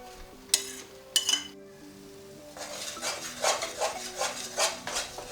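A metal spoon clinks sharply twice against the pot, then stirs ground egusi into the frying palm oil with repeated scraping strokes, about three a second, over a light sizzle.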